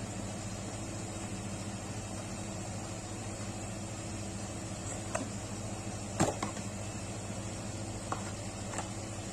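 Steady low machine-like hum with a few short clicks or taps, the loudest about six seconds in.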